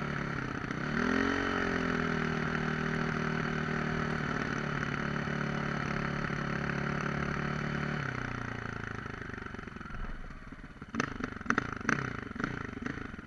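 Enduro dirt bike engine pulling at steady throttle, with a brief rise in revs about a second in. About eight seconds in the throttle closes and the engine note drops away as the bike slows, followed near the end by a run of sharp knocks and uneven pops.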